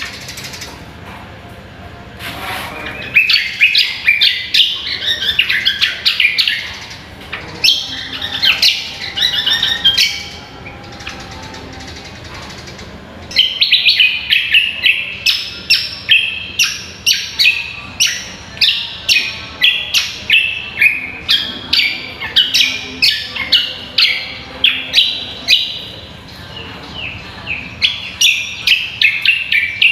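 Great iora (cucak kombo) singing loud runs of sharp, repeated whistled notes. The first phrases break off with short pauses; past the middle a long unbroken run of about two notes a second begins.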